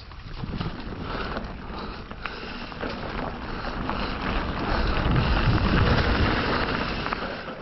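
Mountain bike rolling fast over a dirt trail: wind rushing over the microphone, with tyre rumble and scattered clicks and rattles. It swells to its loudest with a deep rumble about five seconds in, then eases off.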